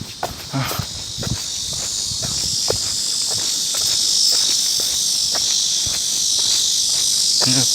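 Cicadas buzzing in a steady high chorus that grows louder over the first few seconds, with footsteps ticking underneath.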